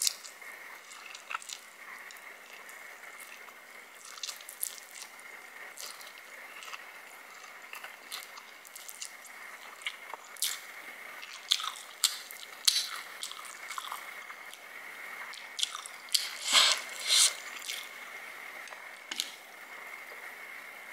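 Close-miked eating of sauced instant noodles: slurping and wet, squishy chewing with many short smacking clicks, busiest and loudest about three-quarters of the way through. A faint steady high whine runs underneath.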